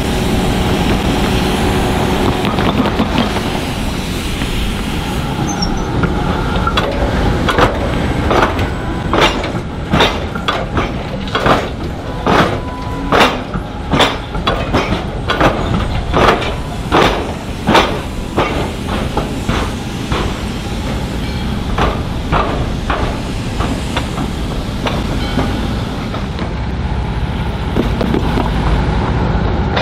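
Tram wheels crossing a tram-and-railway diamond crossing (tram square) slowly, a long run of sharp metallic knocks as each wheel drops across the gaps where the rails cut through each other, over a steady rumble. The knocks start about six seconds in, are loudest in the middle, and die away after about twenty-four seconds.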